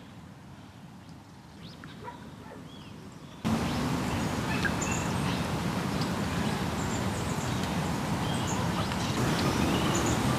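Small birds chirping and calling over a quiet outdoor background. About three and a half seconds in, a louder steady noise comes in abruptly, with the birds still calling over it.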